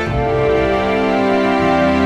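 Background music: sustained, slow-moving chords with a low bass line, changing chord just after the start.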